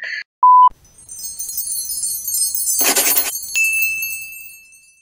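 Short electronic beep, then a shimmering, high chime-like sparkle sound effect, with a brief swoosh about three seconds in and a single high ding that rings on and slowly fades near the end.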